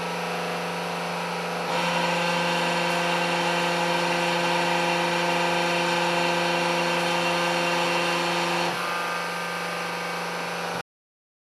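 Electric hydraulic pump of a 500-ton hose crimping machine running with a steady hum. About two seconds in it grows louder and harsher as the machine crimps a hydraulic hose fitting, and eases back about nine seconds in. The sound cuts off abruptly shortly before the end.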